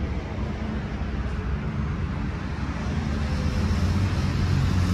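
Steady rumble of passing road traffic, with a low engine drone that grows louder toward the end.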